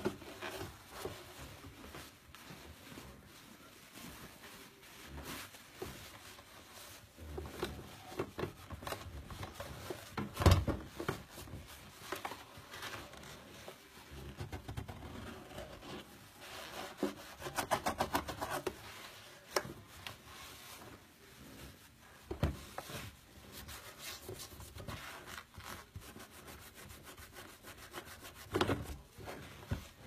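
Hand scrubbing of a greasy plastic appliance with a sponge: irregular rubbing strokes, with a few sharp knocks, the loudest about a third of the way in.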